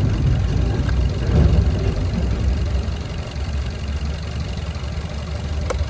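Maruti Suzuki Dzire four-cylinder petrol engine idling unevenly and shaking, with cylinder 2 misfiring (fault code P0302). A short click near the end.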